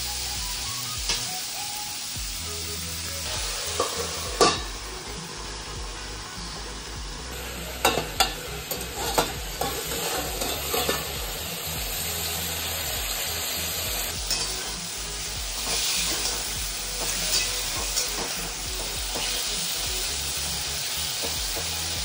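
Pointed gourd pieces sizzling as they fry in oil in a steel kadai, with a steady hiss throughout. A metal spatula scrapes and knocks against the pan, with a loud clank about four seconds in and a run of knocks about eight to eleven seconds in.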